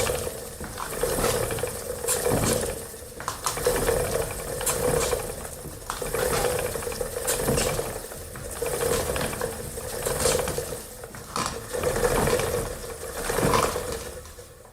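Old wooden spinning wheel turning, with a rhythmic whir and creak that swells about once every second and a quarter, with light wooden clicks. The sound fades away at the very end.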